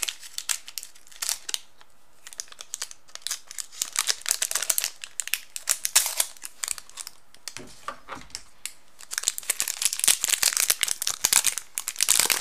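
A chocolate chip snack-bar wrapper being handled and opened: a long run of sharp crinkles and crackles that come thick and fast over the last few seconds.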